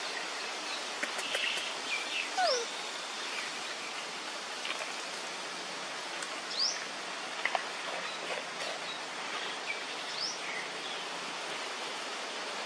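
Outdoor ambience: a steady rushing hiss with a few short, high, rising chirps scattered through it and one brief falling squeak about two seconds in.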